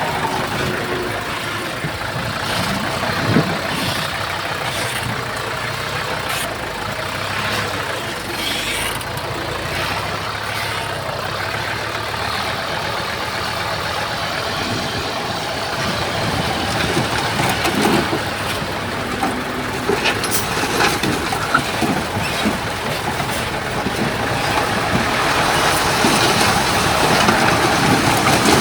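Heavy diesel engine of a bulldozer running steadily, with scattered short clanks and knocks, getting somewhat louder in the last few seconds.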